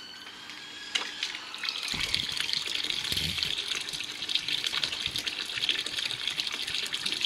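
Water starting to rush and splash down a garden water feature's stream channel about two seconds in, then running steadily: pumped green water arriving to top up the pond.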